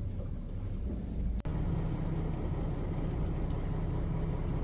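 Fishing boat's engine running steadily, a low rumble, with a brief dropout about a second and a half in.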